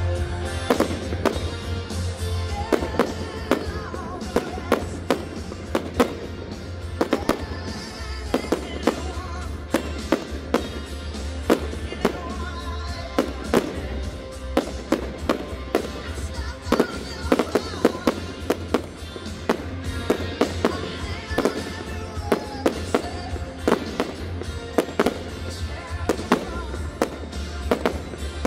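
Fireworks display: a dense, irregular run of sharp bangs and cracks from ground-launched comets and bursting shells, several a second, over music with a steady low beat.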